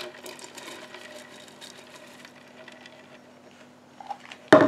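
Shredded parmesan cheese tipped from a plastic container into cream in a pressure cooker's inner pot: faint rustling and light ticks over a faint steady hum, then a louder clatter near the end.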